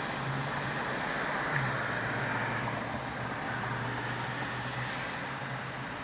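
Steady low hum over an even wash of noise from a parked car with its engine idling, heard from inside the cabin.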